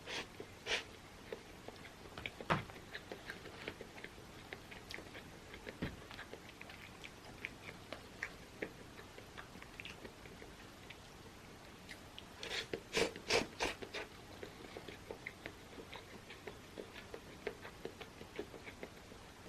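Close-miked eating sounds: quiet chewing with scattered small mouth clicks, and a short run of louder clicks and smacks about thirteen seconds in.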